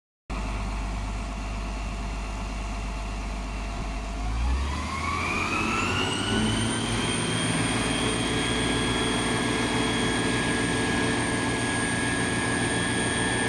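Isuzu FVR fire truck's diesel engine driving its fire pump while the roof monitor throws a water jet. About four seconds in, it revs up with a rising whine over a couple of seconds, then holds steady at the higher pitch.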